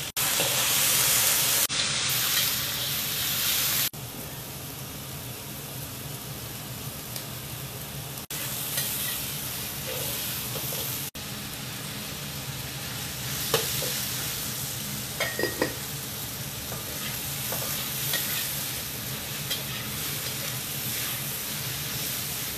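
Fresh squid sizzling as it is stir-fried in a hot wok with garlic. The sizzle is steady and loudest for the first few seconds, with occasional short clicks and scrapes of the steel spatula against the wok.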